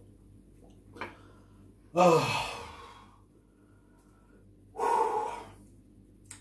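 A man sighs heavily twice: a loud voiced sigh falling in pitch about two seconds in, then a second breathy exhale about three seconds later. A light knock comes just before, about a second in.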